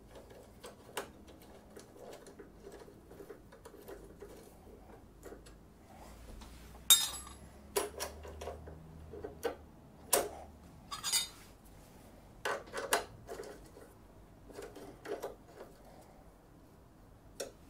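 Hand tool and steel parts clinking as a motorcycle exhaust hanger bracket is loosely bolted to the frame with a hex key: scattered light ticks and clicks, with a handful of sharper metallic knocks through the middle.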